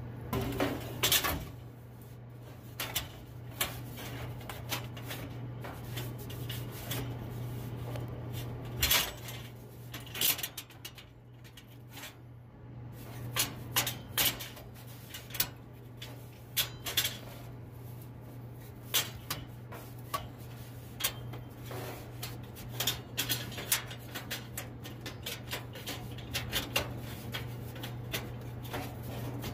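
Aluminium soda cans clinking and knocking against each other and the metal column dividers of a vending machine as they are pulled out and loaded back in by hand, in irregular clicks and knocks.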